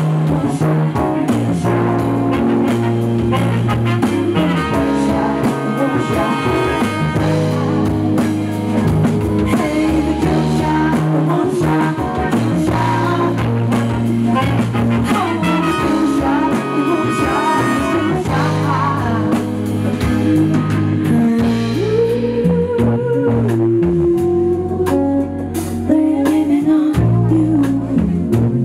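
Live band playing a song: a woman singing over drums, guitar and horns.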